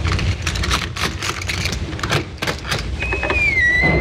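Sound effects on a vinyl story record: a string of sharp clicks over a low rumble, then about three seconds in a long high creak that dips in pitch and holds, a creaking door swinging open.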